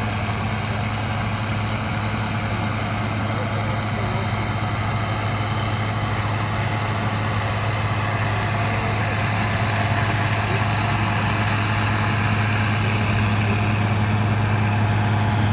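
Allis-Chalmers D21's six-cylinder diesel engine running at steady high revs under load while pulling a weight-transfer sled, getting a little louder in the last few seconds.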